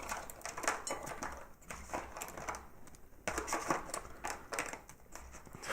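Handling of a hot microwave meal's packaging: irregular light clicks, taps and crinkles. There is a brief lull about two and a half seconds in.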